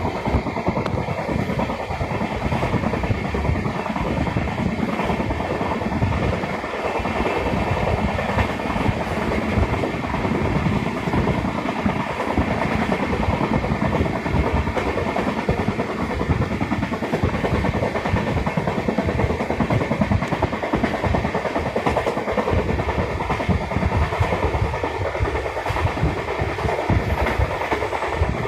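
Train running along the track: a steady rumble with continuous clatter of wheels over the rails.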